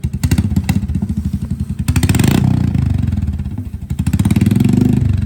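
Royal Enfield Meteor 350's single-cylinder engine breathing through a loud aftermarket silencer, revved twice while standing: it rises about two seconds in, drops back, then rises again near the end.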